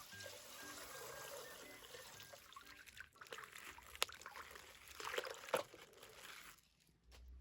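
Coloured water pouring and trickling out of a plastic water bag as it is opened, with a few sharp clicks of the plastic. Faint background music plays in the first couple of seconds.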